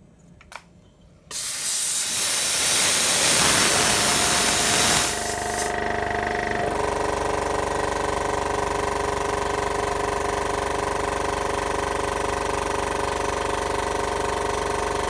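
Compressed air hissing out of a used piston air compressor's tank for about four seconds as the pressure is bled off. The falling pressure brings the compressor's 690 W electric motor and pump back on about five seconds in, and it then runs steadily, refilling the tank.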